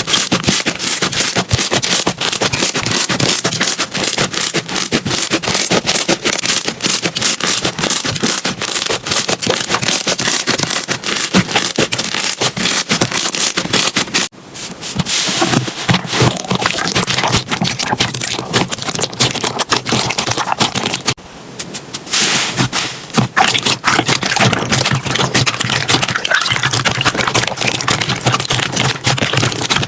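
Slime being squeezed and pressed by hand: a dense run of crackling and popping clicks, with two short breaks, about fourteen seconds in and again around twenty-one seconds.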